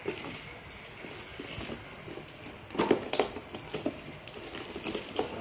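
Plastic-wrapped parcel being handled and its packing tape picked at: irregular rustling and crinkling with scattered sharp crackles, louder for a moment about three seconds in.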